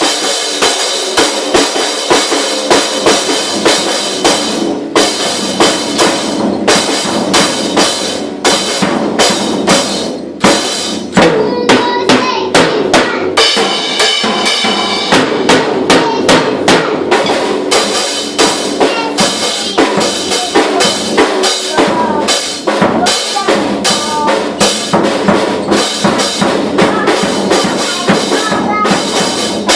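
A drum kit played by a five-year-old boy: fast, uneven strikes on bass drum, snare and cymbals with no steady beat, easing briefly about a third of the way through before going on.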